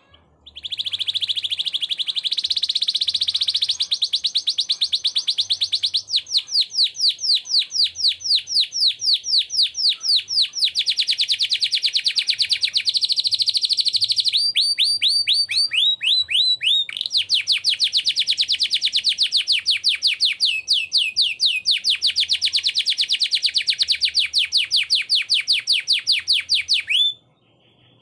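Canary singing one long unbroken song of fast trills and rolls of quickly repeated notes, switching to a new phrase every few seconds, then stopping abruptly just before the end.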